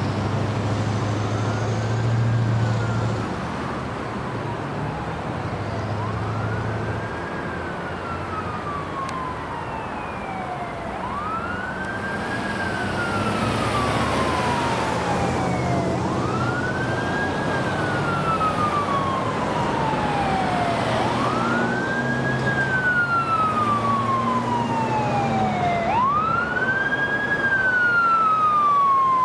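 Hahn fire engine's siren wailing on an emergency response. Each cycle winds up quickly and falls slowly, repeating about every five seconds and growing louder as the truck approaches.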